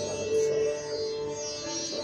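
Sitar playing raga Yaman Kalyan: a plucked note is held and rings on from about half a second in, with its sympathetic strings shimmering. A steady tanpura drone sounds beneath.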